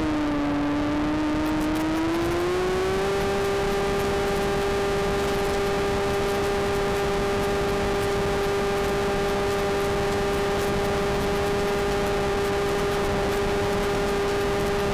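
Brushless electric motor and propeller of a Volantex Phoenix 2400 motor glider under power, heard close up from on board: a steady whine whose pitch dips slightly near the start and climbs back about two to three seconds in, then holds. A hiss of wind over the airframe runs beneath it.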